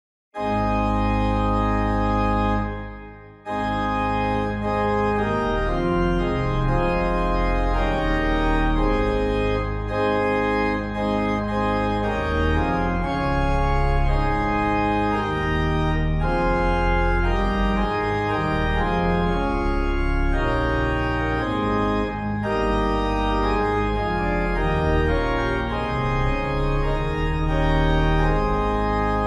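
Organ music: sustained chords over deep held bass notes, dropping away briefly about three seconds in before carrying on.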